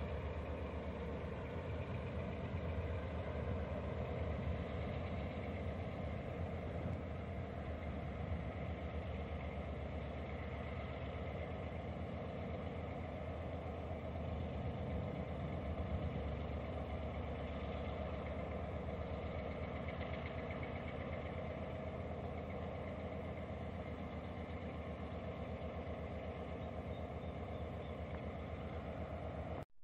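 Diesel locomotive engine idling steadily.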